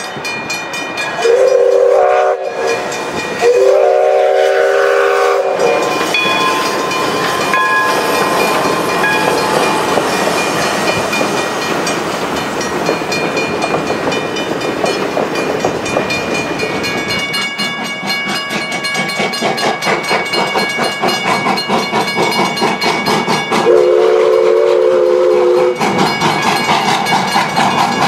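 Steam locomotive whistle sounding two chord-like blasts in the first few seconds, then the steam train passing with continuous running noise from the exhaust and wheels. A regular clacking rhythm sets in past the middle, and one more whistle blast comes near the end.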